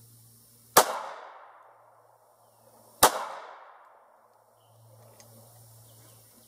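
Two 9mm pistol shots from a Ruger American, a little over two seconds apart, each followed by an echo that fades over about a second.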